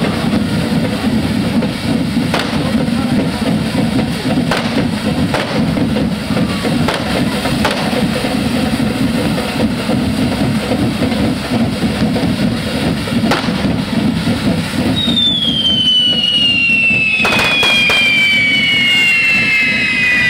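Correfoc fireworks going off: a dense, steady roar with several sharp cracks scattered through. About three-quarters of the way in a high whistle starts and falls slowly in pitch.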